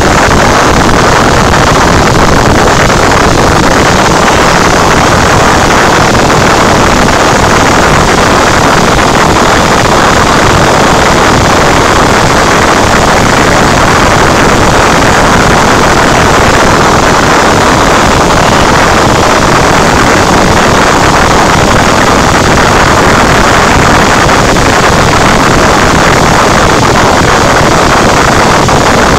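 Cessna 172's piston engine and propeller running steadily in flight, a loud, even drone heard from inside the cabin.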